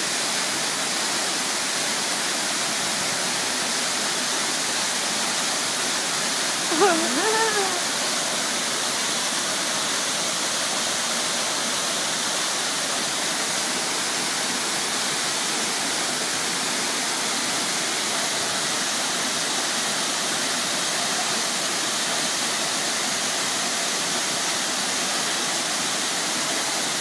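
Jungle waterfall pouring steadily, a continuous even rush of falling water. About seven seconds in, a brief cry rises and falls over it.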